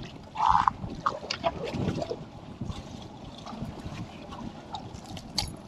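Water slapping and lapping against a small boat's hull, with wind on the microphone and scattered small knocks; a short, loud burst about half a second in.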